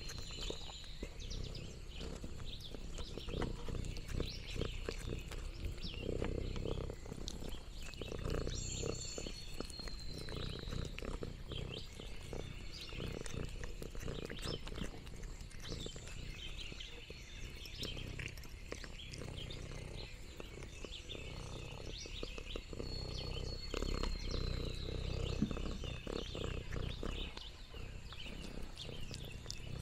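Domestic cat purring close to the microphone, a continuous low rumble, with many small crackles and clicks over it.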